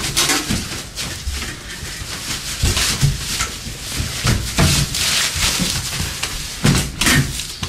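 Two people wrestling and scuffling: a continuous run of thuds, knocks and rustling, with a few grunts and short shouts.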